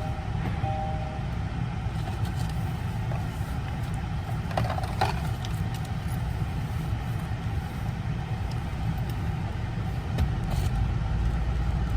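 Car cabin noise while driving: a steady low engine and road rumble. A two-tone chime beeps twice in the first second.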